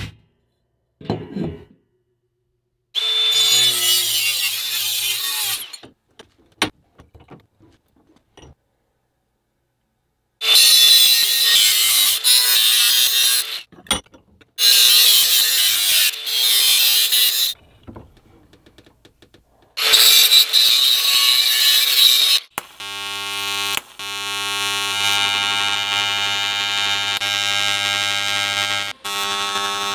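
A hand engraving tool scratching runes into a blue-coated metal tube: four rasping, hissing spells of a few seconds each with short pauses between. In the last several seconds a TIG welding arc takes over with a steady electric buzz.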